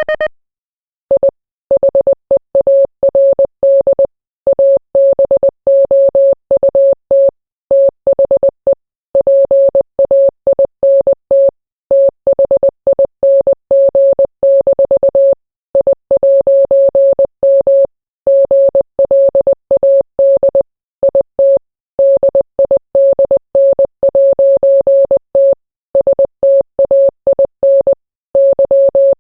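International Morse code sent as a single steady beep, switched on and off into short dits and longer dahs, with short gaps between letters and longer ones between words. It starts about a second in.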